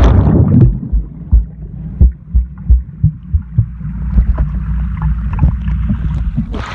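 Muffled underwater sound through a phone in a waterproof case held under pool water: a low rumble with irregular thumps of moving water and handling, all higher sound cut off.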